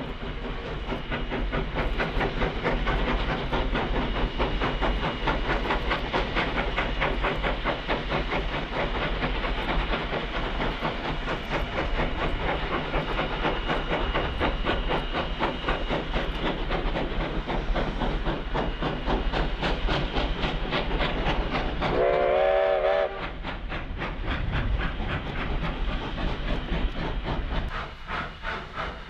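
A train running on rails, its wheels clattering in a quick, even rhythm, with one short whistle blast about three-quarters of the way through.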